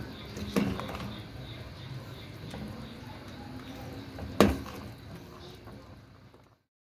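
Metal ladle stirring a stew in a stainless steel pot, with a soft clack about half a second in and a sharper knock of ladle against pot a little after four seconds. The sound cuts off abruptly near the end.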